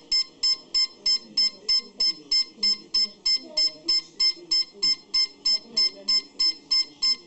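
Nova electronic device beeping constantly: short, identical high-pitched beeps repeating about three times a second without a break, an alarm signal that goes with its continuously flashing red LED.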